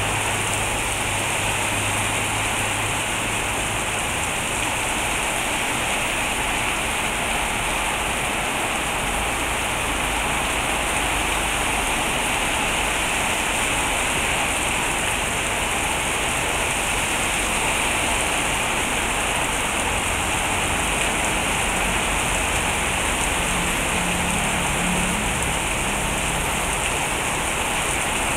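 Heavy rain pouring steadily onto a street and the surfaces around it, an even hiss that does not let up.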